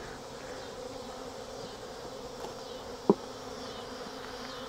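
Honey bees buzzing steadily around an opened hive: robber bees working an abandoned colony's honey. A single short knock about three seconds in.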